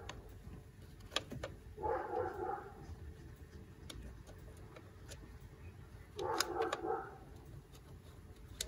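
Faint scattered clicks and light handling noises of parts being fitted by hand, with three short faint tonal sounds, each under a second long: one at the very start, one about two seconds in, and one about six and a half seconds in.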